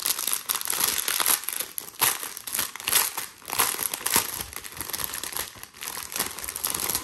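Plastic packaging crinkling as it is handled, a dense run of crackles with sharper spikes throughout.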